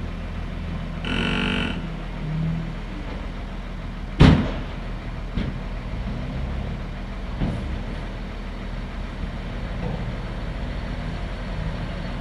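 Heavy truck engines running steadily, with a short pitched blare about a second in and a loud bang about four seconds in, followed by a few lighter knocks.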